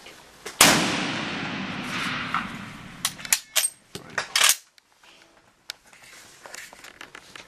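A single shot from a K-31 straight-pull rifle in 7.5x55mm Swiss, with a long echo ringing down the underground rock tunnel for a couple of seconds. A few sharp metallic clicks and clacks follow as the bolt is worked.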